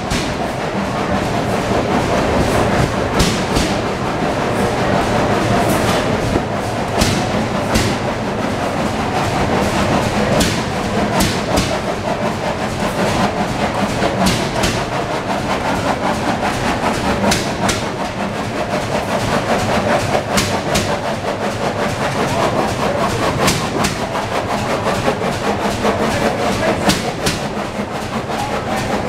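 Many antique stationary gas engines running together: a steady mechanical clatter with irregular sharp exhaust pops and knocks.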